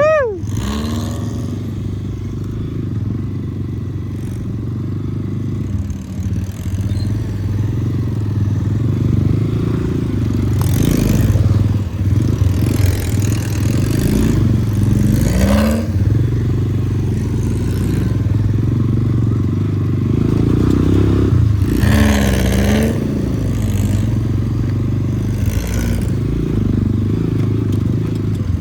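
Off-road vehicle engine running steadily over rough ground, with clattering and scraping from the vehicle on the trail.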